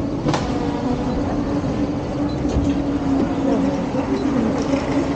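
Steady hum of a passenger train standing at the platform, with faint voices murmuring around it and a sharp click just after the start.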